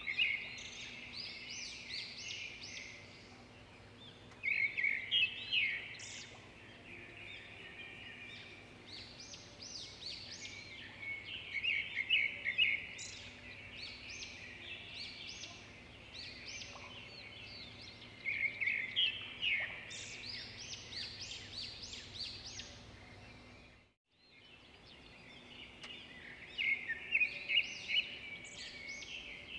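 Small birds chirping and twittering in repeated bursts of quick, high notes, over a faint steady hum. The sound cuts out for a moment about three-quarters of the way through, then the chirping resumes.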